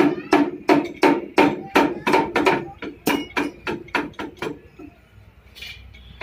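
Hammer blows on metal at the rear axle hub of a Massey Ferguson 241 tractor during brake work, struck at an even pace of about three a second, stopping about four and a half seconds in.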